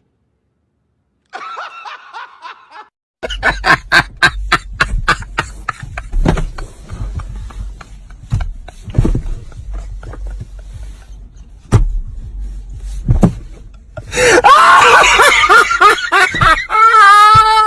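A person laughing hard in quick repeated bursts, which grow louder and more drawn-out near the end.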